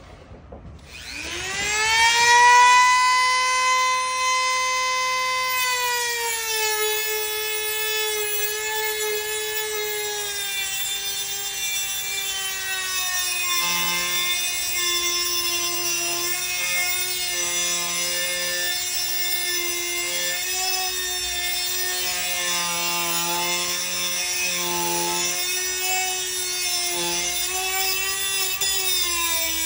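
Dremel rotary tool switched on about a second in, spinning up with a rising whine to a high steady pitch, then cutting into the metal wire rails of a flower-pot stand with a cut-off wheel; the whine drops and wavers in pitch as the wheel bites into the metal.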